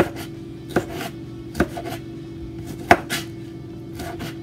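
Chef's knife chopping a tomato on a plastic cutting board: about five sharp, irregularly spaced knocks of the blade striking the board, over a steady faint hum.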